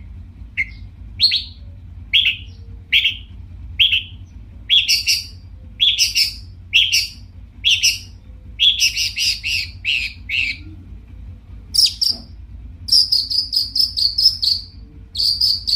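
Long-tailed shrike (cendet) singing loudly: short harsh notes about a second apart at first, then quicker runs of notes and a fast chatter in the second half, over a low steady hum.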